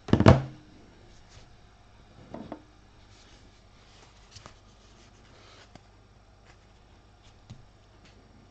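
Trading card packs and cards being handled on a table. A loud, short rustling knock comes right at the start, a softer one about two and a half seconds in, then faint clicks and rustles of cards being sorted.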